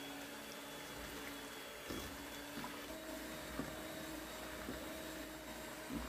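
Electric hand mixer running steadily, its twin beaters whisking eggs, sugar and olive oil into a frothy cake batter in a stainless steel bowl.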